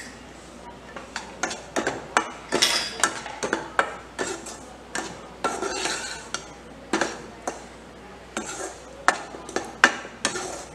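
Perforated steel skimmer stirring a dry, crumbly roasting mix of flour and ground coriander in a kadhai. It makes irregular clinks and knocks against the pan, with short scrapes now and then.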